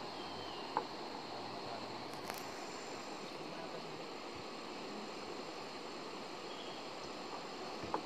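Steady riverside ambience: an even hiss with a faint, steady high-pitched insect drone. A small knock comes just under a second in, and another near the end.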